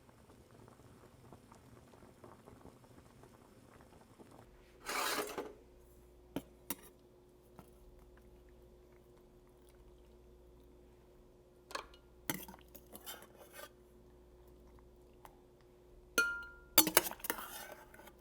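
Kitchen dishes and utensils being handled: several separate clatters and clinks, the loudest near the end, one with a short ringing clink.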